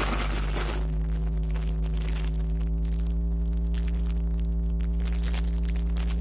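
XCMG 160-ton mobile crane's diesel engine running steadily at low revs, heard from inside the operator's cab as an even, low hum.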